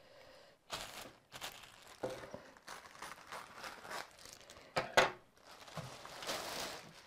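Clear plastic packaging bag crinkling and rustling in irregular bursts as it is cut open with scissors and pulled back by hand, the loudest crackle about five seconds in.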